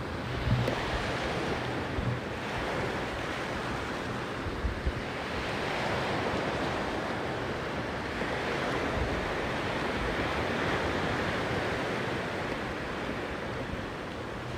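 Sea waves washing onto a beach, the surf swelling and easing in slow surges, with a few low wind buffets on the microphone in the first few seconds.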